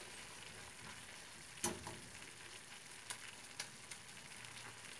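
Crumbled lor curd cheese sizzling faintly as it is dry-roasted in a pan and stirred with a silicone spatula, its water almost cooked off. A few sharp clicks come from the stirring, the loudest about a second and a half in and three smaller ones in the second half.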